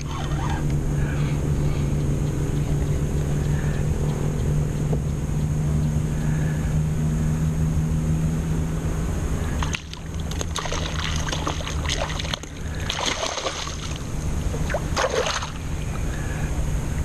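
Steady low hum of a boat engine running. In the second half it is joined by a run of knocks and rattles.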